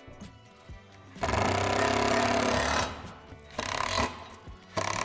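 Cordless power driver running bolts into the seat-support hardware: one long burst, then two short bursts. Quiet background music underneath.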